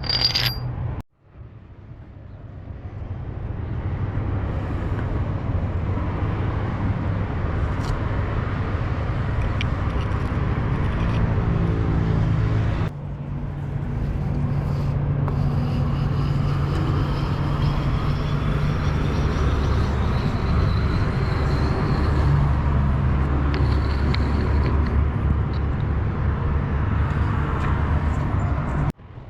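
A heavy engine running steadily with a low hum, broken off abruptly a couple of times, with a faint whine rising slowly in pitch partway through.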